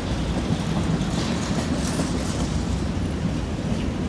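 Freight train cars rolling past below, a steady rumble of steel wheels on the rails.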